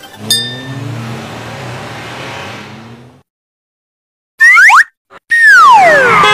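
A car engine revving up, beginning with a sharp click and cut off abruptly after about three seconds. After a second of silence come loud comic sound effects: a short rising whistle, then a long falling whistle glide.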